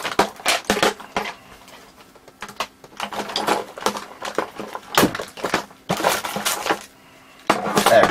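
Rummaging through tools and clutter: an irregular clatter of clicks and knocks from small hard objects being moved about, with a louder burst near the end.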